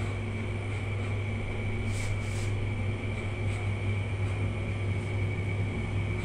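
Electric hair clippers buzzing steadily during a haircut: a constant low hum with a thin steady whine above it.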